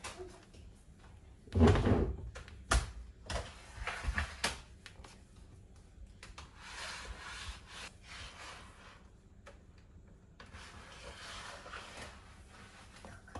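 Handling noises: a cluster of knocks and scrapes in the first few seconds, then two longer stretches of soft rubbing hiss.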